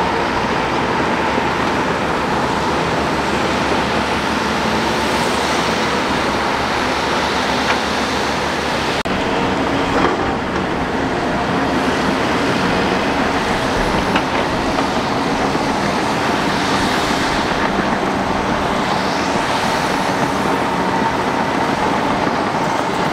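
Diesel engines of hydraulic excavators running steadily under load while digging wet mud: a constant heavy-machinery drone.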